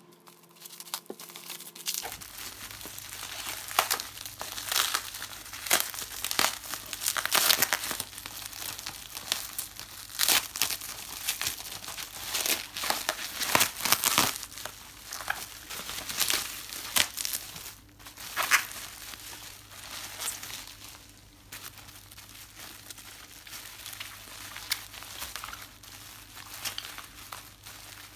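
Packaging being unwrapped and handled: irregular crinkling and rustling with some tearing, busiest over the first two-thirds and thinning out near the end.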